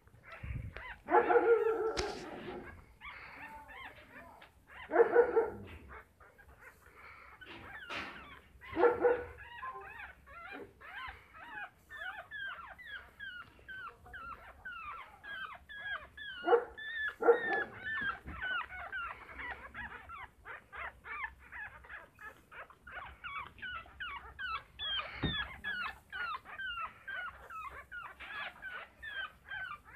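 Newborn pug puppies crying and whimpering. A few loud yelping cries come in the first half, then a long run of rapid, high, falling squeaks.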